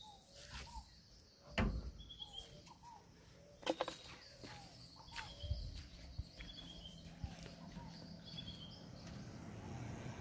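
Birds calling: many short repeated chirps and brief high trills, every second or so. A few sharp knocks cut in, the loudest about three and a half seconds in.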